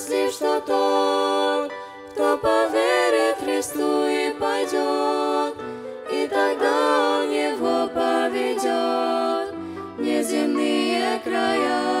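Vocal trio, two girls and a boy, singing a Russian Christian song in harmony through microphones, with steady low accompaniment notes held beneath the voices.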